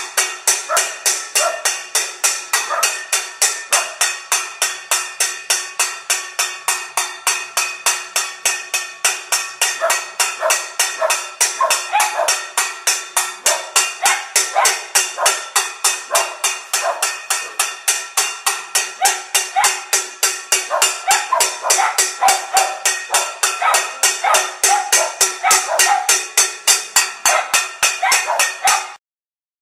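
A stainless steel pan struck over and over in a steady beat, about three strikes a second, each hit ringing with a metallic tone. This is pot-banging in protest (panelaço). It stops abruptly near the end.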